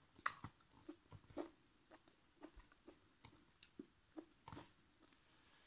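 Faint chewing and mouth sounds of someone eating sticky rice and mushroom curry with their fingers, with scattered small clicks and one sharper click near the start.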